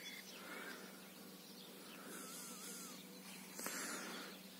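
Faint, steady buzzing of a flying insect, such as a bee, near the microphone.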